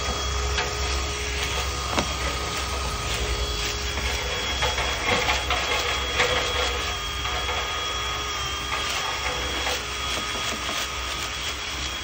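Cordless drill spinning a flexible rotary brush rod inside a fully blocked dryer vent duct: a steady motor whine with a low rumble, broken by irregular clicks and knocks of the rod against the duct and vent hood as it breaks up packed lint.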